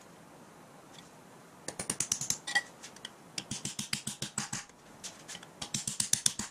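Rapid light hammer taps on a hardened steel pin held in locking pliers, driving it down through a flywheel into the crankshaft. The taps come in three quick runs of sharp metallic clinks with a short ring, starting about two seconds in.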